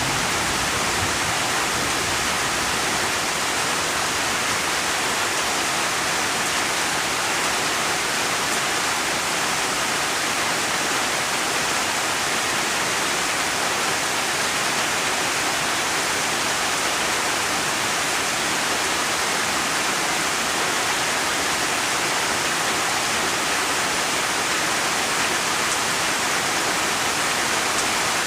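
Steady rain, an even unbroken hiss with no separate drops or pauses standing out.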